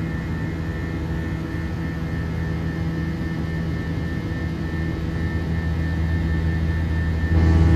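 Airbus A321 cabin noise during the climb after takeoff: the steady drone of the jet engines with a low hum of steady tones, heard from inside the cabin. It grows slightly louder and then steps up abruptly near the end.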